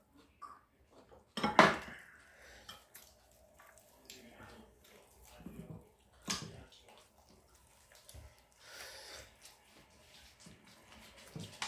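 Cutlery clinking and knocking against dishes while eating. There is a sharp clack about a second and a half in, another about six seconds in, and smaller clicks between.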